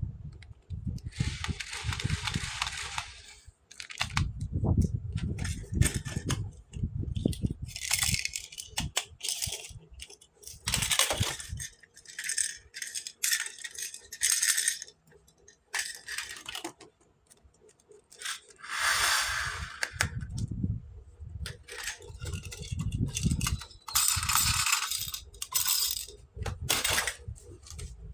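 Small plastic toy pieces and packaging being handled: irregular rattling and clicking, stretches of crinkly rustling, and soft low bumps as parts are set down.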